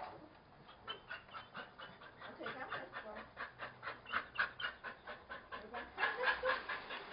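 Dog panting quickly and evenly, about five breaths a second, louder for a moment about six seconds in.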